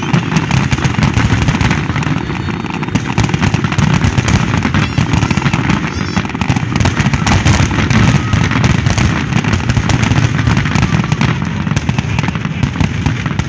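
Aerial fireworks going off in a rapid, continuous barrage: many shells bursting close together with booms and crackle, with no gap in the firing.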